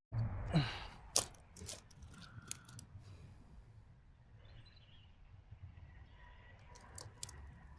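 Fishing tackle being handled: a short whoosh just after the start, then scattered sharp clicks from the spinning reel and rod.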